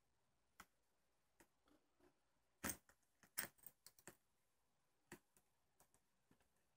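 Mostly quiet handling noise: a scattering of short, faint clicks and light metallic clinks as fishing line is twisted by hand and the metal spoon lure and its treble hook jiggle on it. The clicks come thickest around the middle.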